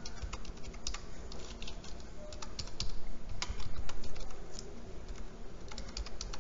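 Typing on a computer keyboard: a run of irregular key clicks as a short name is typed in.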